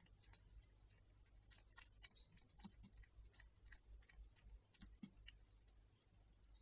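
Faint, irregular wet clicks and smacks of a Siamese mother cat licking her newborn kitten, just after the birth.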